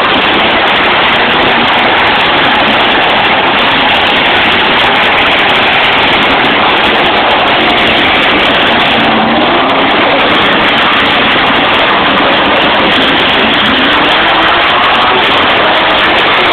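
Several demolition-derby car engines running and revving together, their pitch wavering up and down. It is loud and distorted, overloading the phone's microphone.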